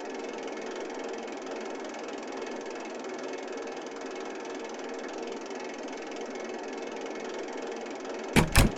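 A steady mechanical running noise with a faint hum in it, then two sharp knocks close together near the end.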